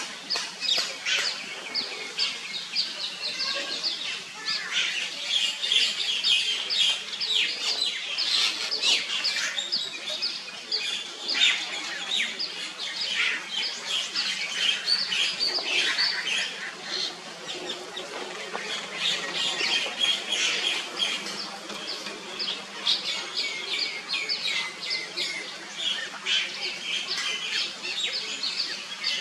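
Birds chirping: many short, high calls overlapping.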